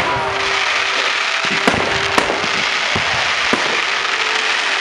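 Fireworks display: a dense crackling hiss with sharp bangs scattered through it, the loudest two coming close together about two seconds in.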